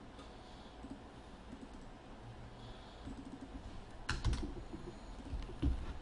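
Computer keys being typed and clicked, quiet light clicks with a few sharper, louder clicks about four seconds in and again shortly before the end.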